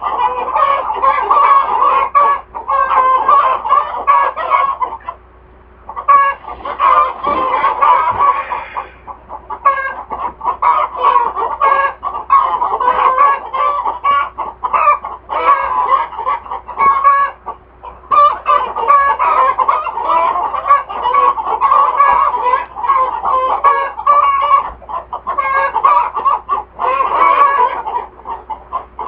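A flock of hens cackling and clucking loudly without a break, many birds calling over one another, with a brief lull about five seconds in.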